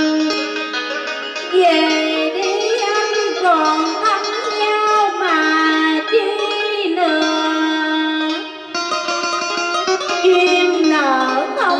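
Vọng cổ karaoke backing music: a plucked-string melody whose notes bend and slide in pitch over steady lower notes.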